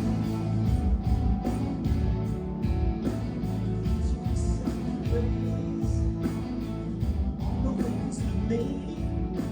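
Rock band playing an instrumental passage between sung lines, with electric guitar, bass and drums keeping a steady beat.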